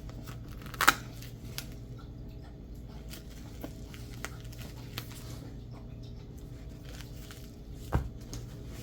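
Velcro patches being handled, with a short rip of hook-and-loop fastener pulling apart about a second in, light fiddling clicks, and a sharp knock near the end, over a steady low hum.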